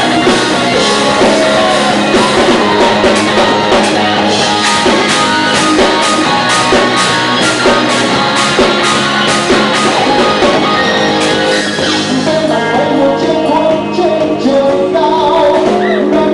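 Live rock band playing loud, with guitar, drum kit and singing; about twelve seconds in the steady drum strikes fall away, leaving held guitar notes and voice.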